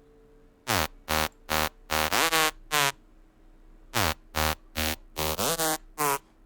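Dubstep-style software synthesizer patch played in short stabs, each note diving steeply in pitch, in two phrases of about six notes each, the first starting just under a second in and the second about four seconds in. A faint held tone sits underneath.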